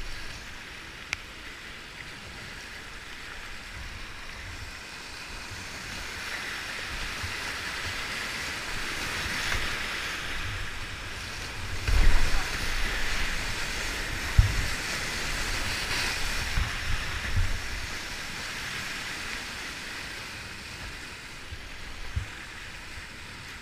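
Whitewater rushing and splashing around a kayak running a steep rocky rapid, with scattered low thumps on the hull and camera. A louder splashy burst comes about halfway through as the bow plunges into foaming water.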